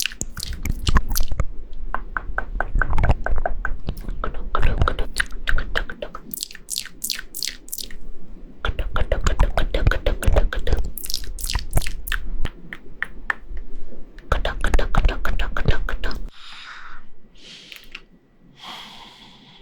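Close-mic ASMR sleep-aid trigger sounds: quick runs of crisp clicks and taps with low thumps, stopping suddenly about 16 seconds in, followed by a few soft breathy puffs.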